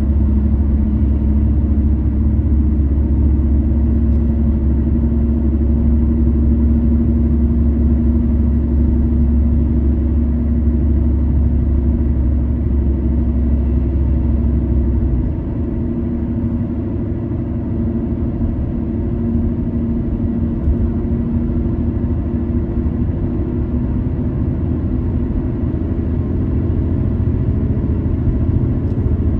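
Car driving along a city street: a steady low rumble of engine and road noise, which drops somewhat about halfway through.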